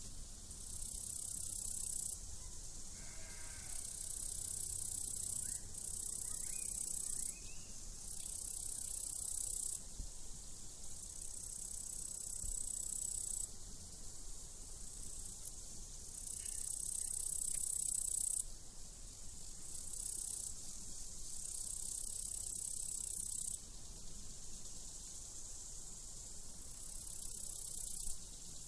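Crickets singing in long, high-pitched trills that start and stop every second or two. A sheep bleats faintly a few seconds in.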